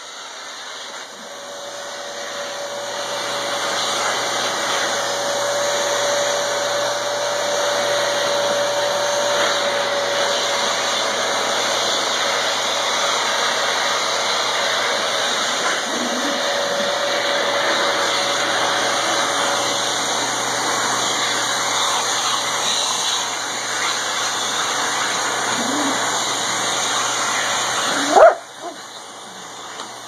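A vacuum cleaner running while a dog bites at its suction wand, the motor noise steady with a thin whistling tone that comes and goes. The dog makes a few short whimpers, and near the end there is one sharp loud knock, after which the vacuum sound drops.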